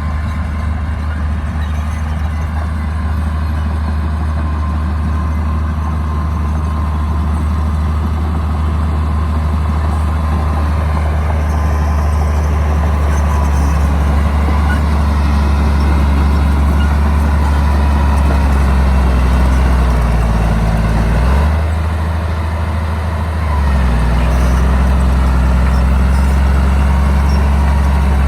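Bulldozer's diesel engine running steadily. About twenty seconds in the revs sag, then pick back up a couple of seconds later.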